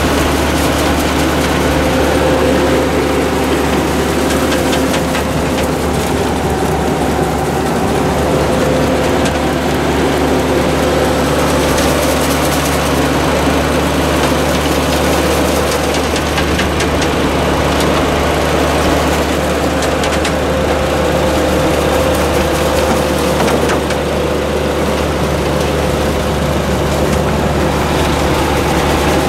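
A tractor and side-mount blueberry harvester running steadily while harvesting: a constant engine drone under the busy rattle of the harvester's shaking machinery working through the bushes.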